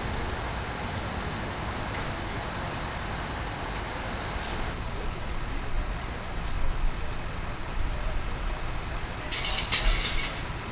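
Street traffic noise with a steady low engine rumble from vehicles, growing a little louder and more uneven partway through, and a short loud hiss near the end.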